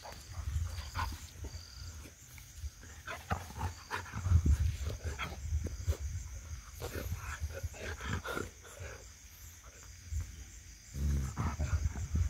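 Dog making short, irregular grunts and growls as it rolls and wriggles on its back.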